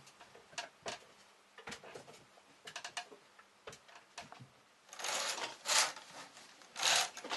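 Scattered light clicks and rustles, then curtains swished open in three quick pulls starting about five seconds in.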